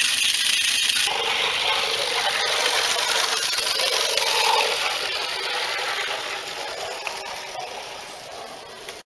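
Small live-steam engine of a garden-railway model steam tram running, a steady hissing noise of escaping steam and working parts. It grows fainter over the second half as the tram runs away along the track, then cuts off suddenly near the end.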